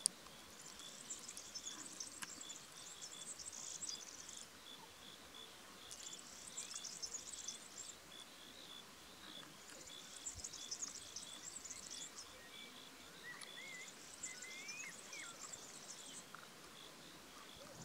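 Faint insect chorus: high buzzing trills in bouts of a few seconds with short gaps, over a steady rapid chirping, with a few short faint bird chirps about three-quarters through.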